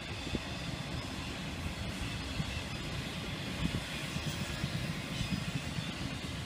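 Intermodal freight train's container and trailer cars rolling past: a steady low rumble of steel wheels on rail.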